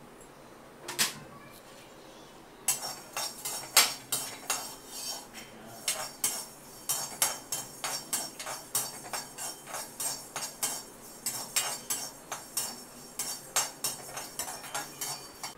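Metal spoon stirring and scraping coriander seeds in a stainless steel kadai as they roast: a single clink about a second in, then a quick, uneven run of clinks and scrapes, about two or three a second, from about three seconds in.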